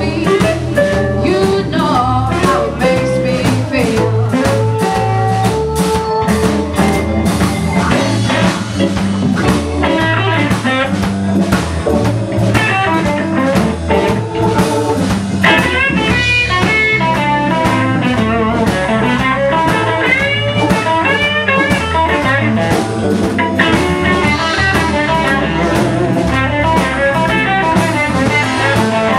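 Live blues band playing: a lead line with bending notes over electric bass and drum kit, loud and steady.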